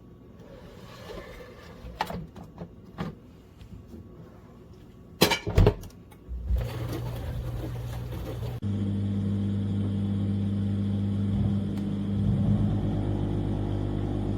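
Several clicks and knocks, two loud ones about five seconds in, then a mini countertop dishwasher's pump motor starts with a steady hum about six seconds in and steps up louder a couple of seconds later, running on steadily.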